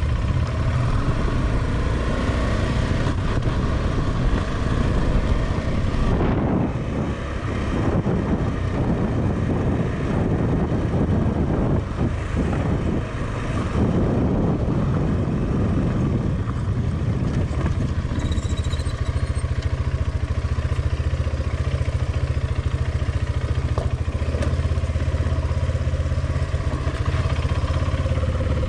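KTM 390 Adventure's single-cylinder engine running steadily on the move, with road and wind noise around it. The noise thickens over a stretch in the middle before settling again.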